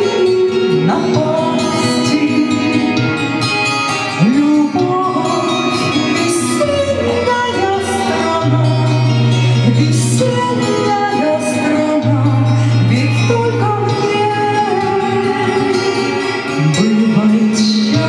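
A woman singing a slow Russian romance into a microphone, her voice gliding between notes over a recorded backing track with long sustained bass notes.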